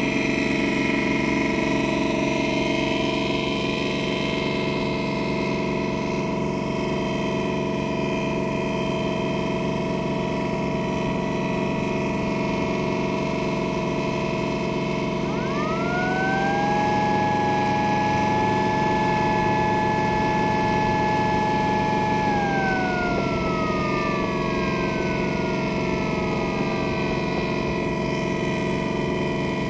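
Steady drone of a river boat's engine under way. About halfway through, a siren winds up quickly, holds one steady wail for about six seconds, then winds slowly down.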